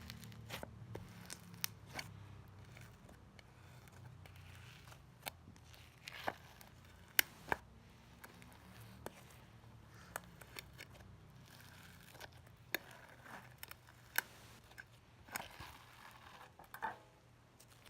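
Slime being worked by hand: faint, irregular sharp clicks and small pops, about one or two a second, over a low steady hum.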